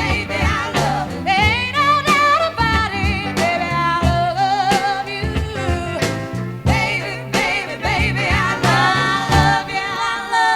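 Background music: a song with a sung vocal melody over bass and a steady drum beat.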